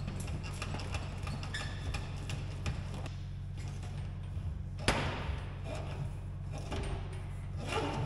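Handling noise from hanging a mini-split indoor unit: light clicks and taps of its plastic casing, line set and cables against the metal wall panels, one sharp knock about five seconds in, and a short scuffing rustle near the end.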